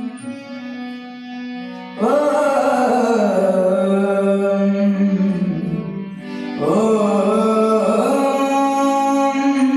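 Devotional hymn to the Mother goddess sung with long held, sliding notes over musical accompaniment; a new loud phrase comes in about two seconds in and another near the seven-second mark.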